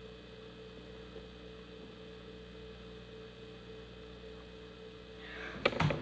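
Steady electrical hum; near the end a child's footsteps start on the stairs, a quick run of taps and knocks.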